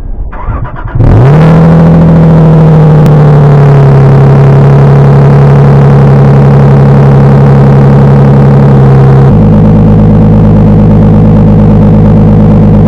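Lexus IS300's 2JZ-GE inline-six, through a muffler-delete exhaust with the third catalytic converter removed and the stock resonator kept, cold-starting about a second in with a brief rev flare, then settling into a steady high cold idle near 2000 rpm. About nine seconds in the idle is lower and deeper, the engine having warmed for a couple of minutes.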